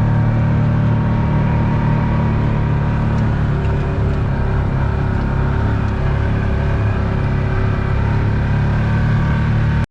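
Vehicle engine running steadily at a constant speed, a loud even hum that cuts off suddenly at the very end.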